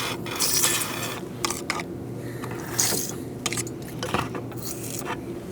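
Ratchet wrench with a 10 mm socket and extension clicking in short, irregular strokes as it is worked back and forth on a rusted bolt that will not come out.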